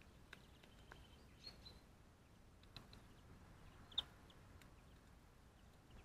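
Faint, scattered ticks of a great spotted woodpecker pecking at seeds and nuts on the ground, with a few short high bird chirps. A sharp click about four seconds in is the loudest sound.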